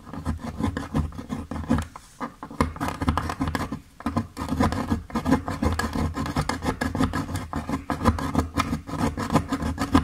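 Food being grated by hand on a miniature stainless-steel box grater: repeated short rasping strokes of metal teeth scraping, with brief pauses about two and four seconds in.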